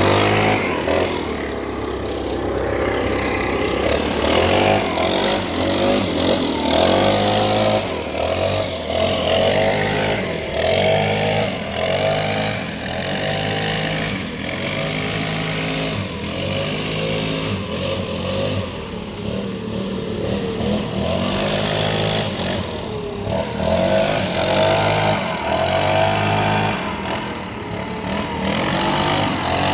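Petrol leaf blower running, its engine note rising and falling over and over as the throttle is worked.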